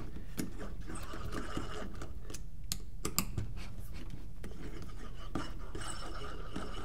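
Faint handling sounds from a paintball marker being taken apart: scattered light clicks and soft scraping of metal parts while the bottom-line ASA is worked loose.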